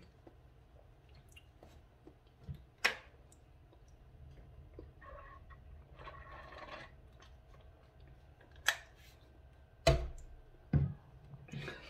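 Drinking from a water bottle, with a soft stretch of swallowing in the middle. Several sharp clicks and knocks come from the bottle being handled; the loudest, a knock with a low thud about ten seconds in, is likely the bottle being set down.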